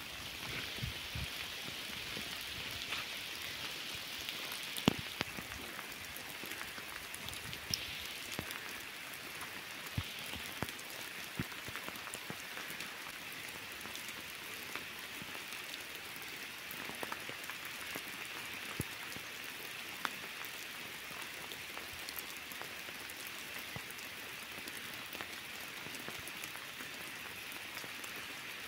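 Steady rain falling on rocky mountain ground, with a few sharp ticks standing out.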